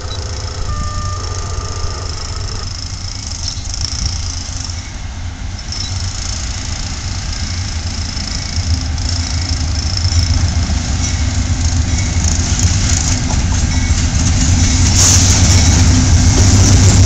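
Norfolk Southern diesel freight locomotives approaching, their low engine rumble growing steadily louder as they near.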